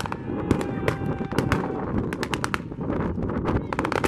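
Blank gunfire from reenactors' rifles: scattered single shots, then a fast machine-gun burst near the end.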